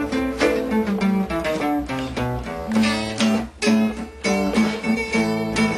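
Two nylon-string acoustic guitars played together, strummed chords mixed with picked notes, with a short break about three and a half seconds in.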